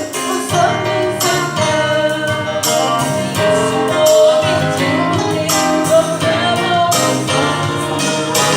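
A song: voices singing held notes over band accompaniment with a steady percussive beat.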